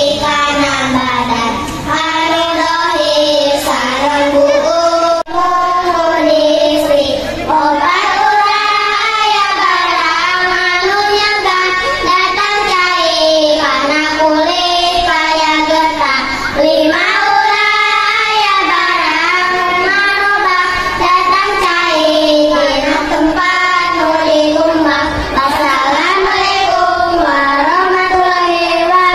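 A group of children singing together in unison into microphones, one steady melody line throughout.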